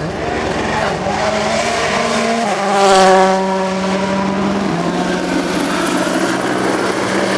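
Rally car engine revving hard as the car passes close by on a gravel stage, loudest about three seconds in, with a rush of gravel and tyre noise. A steady hum runs underneath through the second half.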